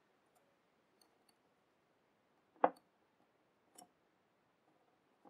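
Small clicks and taps from handling a rebuildable atomizer while cotton wick is tucked beside its coil. One sharp click about two and a half seconds in is the loudest, with a softer one a second later and a few faint ticks before.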